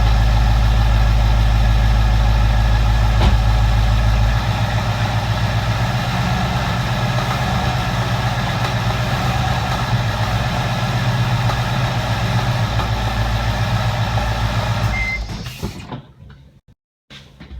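2017 Ford Mustang engine running steadily, with the knock the owner reports at only 3,200 miles on the motor. Its deepest rumble eases about four seconds in, and the engine sound dies away near the end, leaving a few faint clicks.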